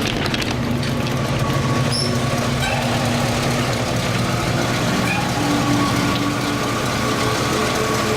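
1967 Oldsmobile Cutlass's engine idling steadily, with a faint high chirp or two about two seconds in.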